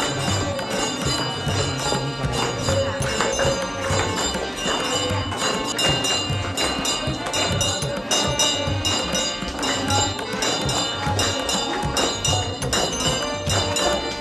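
Indian devotional music with a steady drum beat and jingling percussion.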